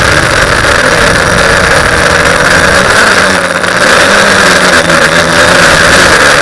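TBS Discovery quadcopter's electric motors and propellers running loud and steady in flight. The sound dips briefly about three and a half seconds in.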